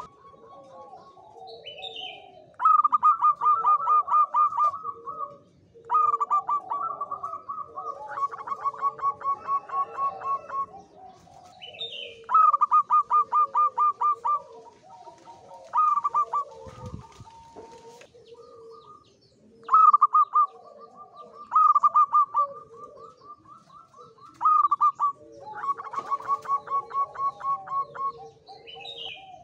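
Male zebra dove (perkutut) singing its staccato cooing song: bursts of rapid, clipped coos repeated every few seconds, the song of a male in high breeding drive. Softer, lower cooing and a few short high chirps sound underneath.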